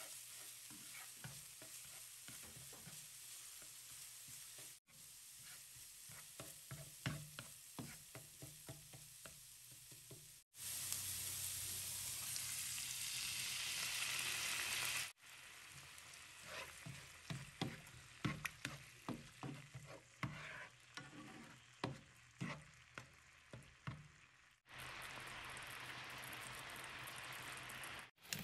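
Chopped ginger and garlic sizzling in oil in a nonstick frying pan on low heat, with a spatula scraping and stirring in short irregular strokes; chili sauce is then added and the pan goes on sizzling. The sizzle swells to a louder steady hiss for a few seconds in the middle and again near the end.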